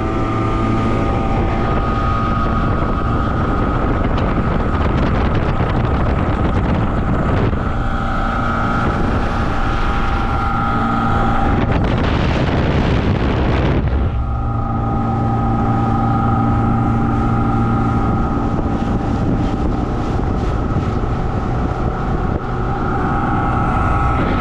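Outboard motor of a small fishing boat running steadily under way, with wind buffeting the microphone. Around the middle, a heavier rush of wind noise drowns the engine tone for about two seconds.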